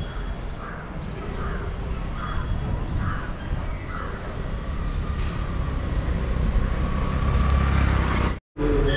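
Crows cawing, several short calls in a row over the first few seconds, over a steady low rumble of wind on the microphone that grows louder towards the end.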